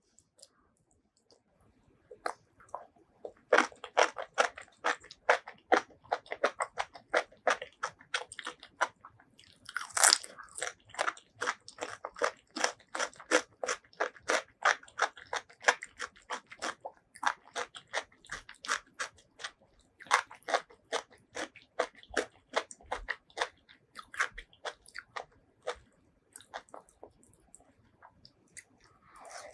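Close-miked chewing and biting of spicy food, a fast run of crisp, wet crunches that starts about two seconds in, peaks in a louder bite around ten seconds in and thins out near the end.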